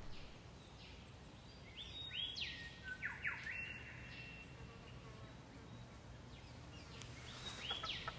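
Birds calling: several short whistled notes that sweep sharply up and down in pitch, about two seconds in and again near the end, over faint outdoor background noise.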